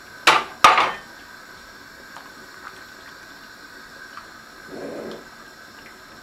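Two sharp clinks of kitchenware against a stainless steel stockpot, close together just after the start, then a soft slosh as a silicone spatula goes into the broth about five seconds in.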